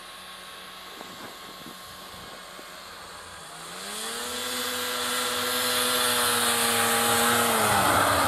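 Small off-road vehicle engine approaching across open ground. Faint at first, it grows louder from about three and a half seconds in and holds a steady pitch, then the pitch drops near the end as the vehicle passes close by.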